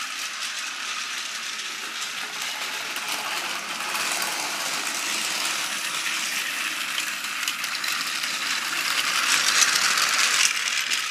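Tomy Plarail DD51 battery-powered toy locomotive running on its plastic track: a steady whir of the small motor and gearbox with fine fast clicking. It gets louder for a moment near the end as it passes close by.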